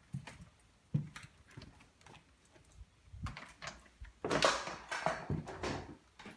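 Scattered light knocks and clicks in a small room, with a louder rustling scrape a little over four seconds in.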